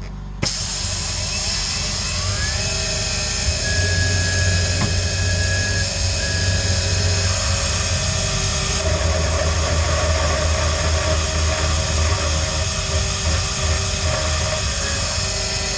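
Tormach 440 CNC mill spindle driving a 6 mm end mill through an aluminium plate, opening holes to size. A steady machining whine and cutting noise starts abruptly about half a second in, with tones that come and go as the tool moves.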